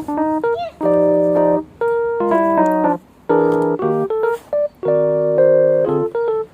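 Background music played on a keyboard: held chords in short phrases with brief pauses between them.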